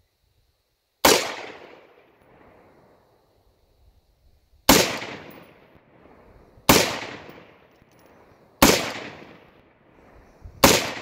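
Scoped AR-style semi-automatic rifle fired five times, the first shot about a second in and the rest about two seconds apart, each crack trailing off in an echo of about a second.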